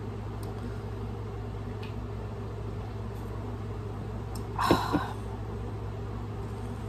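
Steady low background hum, broken once about four and a half seconds in by a short, loud throaty sound from the drinker after a swig of soda, with a couple of small knocks.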